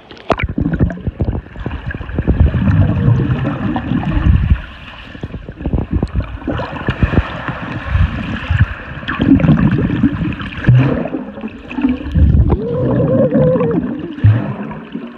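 Swimming-pool water heard through a phone microphone held under the surface: muffled gurgling and bubbling with dull knocks and rumbles from bodies and hands moving in the water. Near the end a child's muffled underwater call rises and falls.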